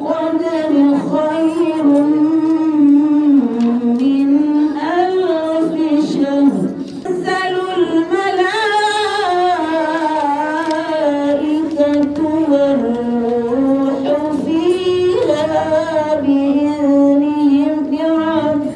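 A woman's voice chanting a Quran recitation in a slow, ornamented sung style, amplified through a microphone. One wavering melodic line runs on, pausing briefly for breath about 7 and 15 seconds in.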